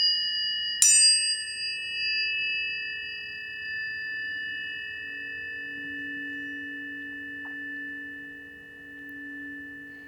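Planetary tuning forks: one more fork is struck about a second in, and several forks ring together as a chord of clear, pure tones. The sound fades slowly over the following seconds.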